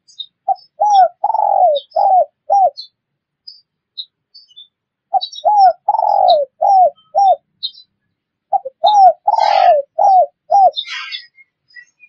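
Spotted dove (tekukur) cooing: three phrases a few seconds apart, each two short coos, a longer falling coo, then two short coos. Faint high chirps of small birds run behind it.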